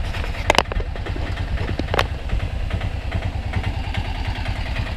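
Auto-rickshaw's small engine idling with a steady low rumble, with a sharp click about half a second in and another about two seconds in.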